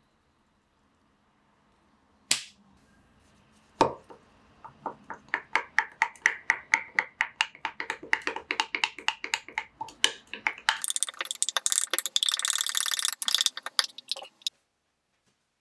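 A stick stirring a drink in a drinking glass. Two knocks come first, then rhythmic strokes clinking and scraping against the glass at about four a second, speeding up into fast continuous stirring near the end before stopping.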